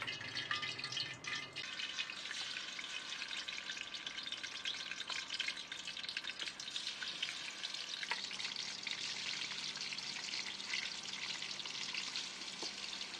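Cubes of tofu frying in hot soybean oil in a steel wok: a steady, dense sizzle and crackle as the pieces are added to the oil.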